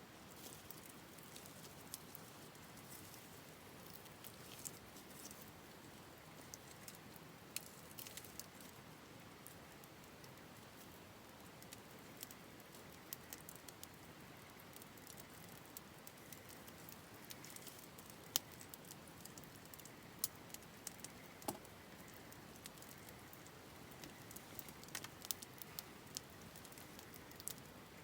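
Wood campfire crackling faintly, with irregular sharp pops and snaps over a low steady hiss.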